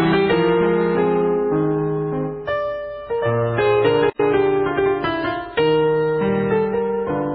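Piano playing slow sustained chords and melody notes, with a momentary cut in the sound about four seconds in.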